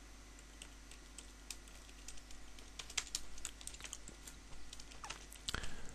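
Computer keyboard typing: faint, irregular key clicks, sparse at first and coming more often after about a second and a half.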